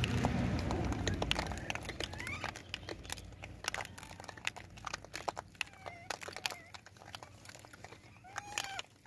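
Troop of rhesus macaques foraging and feeding on gravelly ground: many short crunching and rustling clicks, with a few short, high, arching squeaks from the monkeys.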